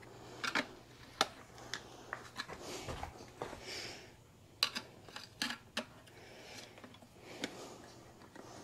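Irregular small clicks and taps of a screwdriver and metal parts being handled while a headlamp is fitted to a motorcycle's front end, over a faint low hum.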